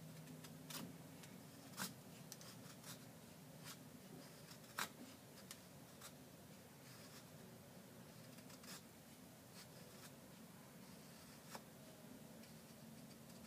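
Maserin folding knife's 440 stainless blade shaving curls off a stick of wood to make feather sticks: faint, short scraping strokes at uneven intervals, the sharpest about two and five seconds in.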